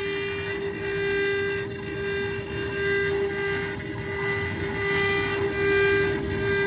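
CNC router with a 3.2 kW water-cooled spindle running steadily while carving, with higher stepper-motor tones that come and go as the gantry moves. Over it is a rougher cutting noise that swells and fades about once a second.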